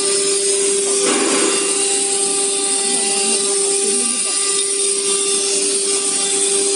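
CNC router spindle running steadily with a constant whine over a hiss of machining noise, with a brief swell of noise about a second in.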